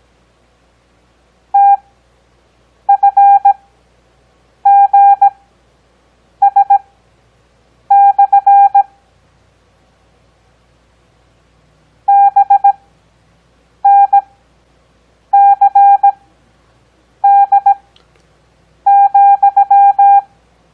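Morse code sent as a single steady-pitched beep keyed into dits and dahs, with characters at 17 words per minute spread out by Farnsworth spacing to 6 words per minute. About ten characters sound, each followed by a gap of a second or so, with a longer pause about halfway through marking a space between words.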